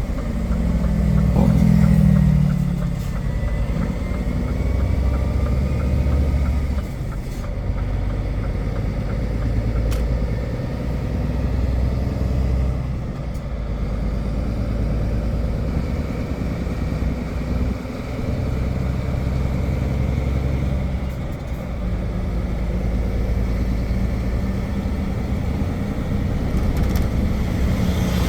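Container truck's diesel engine running under way, heard from inside the cab, with its pitch and load shifting several times, including a falling note about a second or two in. A few faint clicks sound over the engine noise.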